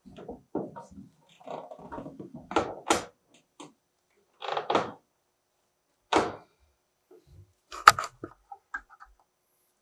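A series of separate knocks and thumps with short scraping noises between them, the sharpest and loudest knock about eight seconds in.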